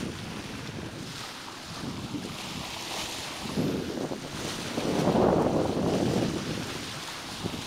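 Wind buffeting the microphone over the rush of water at a sailing yacht's bow as it cuts through the sea, swelling louder a few times.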